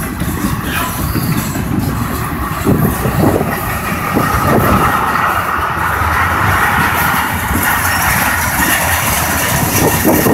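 Freight cars of a long freight train (tank cars, covered hoppers and boxcars) rolling past close by: a steady rumble of steel wheels on the rails with repeated clacks as the wheels cross rail joints.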